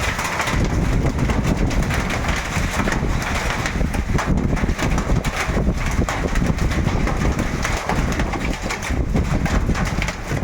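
Hailstorm with rain: hailstones and rain pelting down in a dense, continuous clatter of small hits, with a heavy rumble of wind on the microphone.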